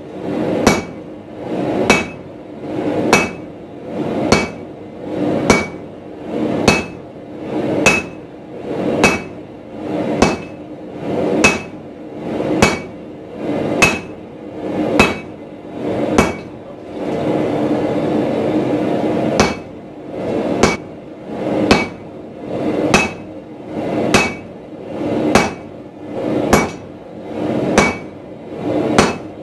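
Hammer blows on a glowing 4140 steel bar held on an anvil, struck at a steady pace of about one blow a second, each with a short metallic ring from the anvil. About two-thirds through, the blows pause for some three seconds and a steady rushing noise takes their place.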